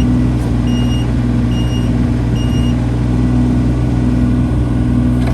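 A John Deere 17ZTS mini excavator's three-cylinder Isuzu diesel running steadily, with a pulsing hum. Its travel alarm beeps three times and stops a little under three seconds in.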